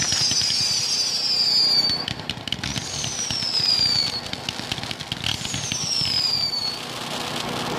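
Fireworks display: three long high whistles, each falling in pitch, the first already under way, set among scattered pops and crackles from bursting shells and rising comets.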